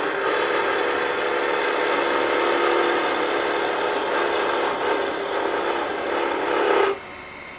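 A turning tool cutting a thin spindle spinning on a wood lathe: a steady shearing hiss over a steady hum. About seven seconds in the cut stops abruptly, and only a quieter running sound is left.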